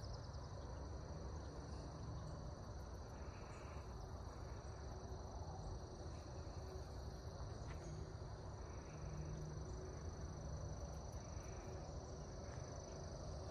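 Steady chorus of crickets, a continuous high trill, over a low rumble.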